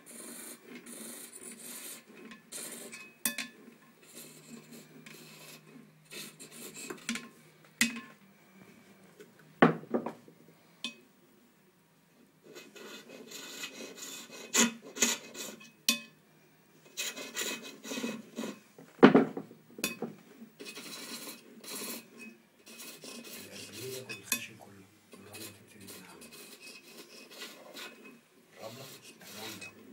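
Chisel cutting a small wooden piece turning on a bow lathe: a rough scraping that comes and goes in irregular strokes, with a few sharper knocks, the loudest about two-thirds of the way through.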